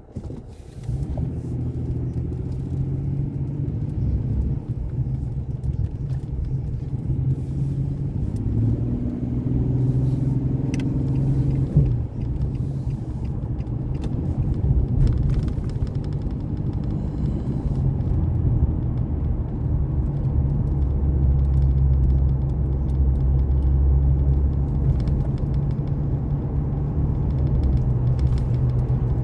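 Vehicle engine and road rumble while driving, a steady low hum that begins abruptly about a second in and shifts in pitch between about eight and twelve seconds in.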